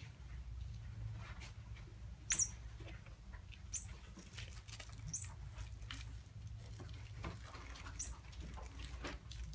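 Kittens playing on a cardboard incline cat scratcher: scattered taps, knocks and scratches of paws, claws and a ball against the cardboard. Four short high squeaks come through over the tapping.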